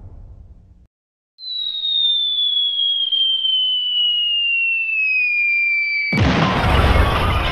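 Cartoon falling-whistle sound effect: a single whistling tone slides slowly down in pitch for about five seconds and ends in a loud thud about six seconds in, followed by noisy crashing. The fading rumble of an explosion dies away in the first second.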